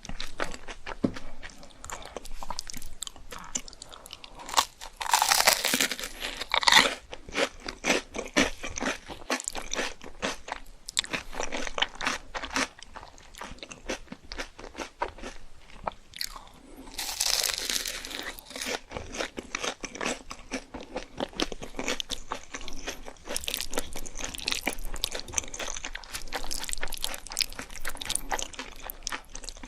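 Close-up eating sounds: someone biting and chewing crispy food, a dense run of crisp crunches, with two louder stretches of crunching about five seconds in and again around the middle.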